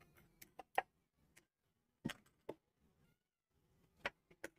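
A few faint, scattered clicks and knocks of a steel spoon against a steel mixer-grinder jar as chopped tomatoes are spooned in and the jar is handled on its base.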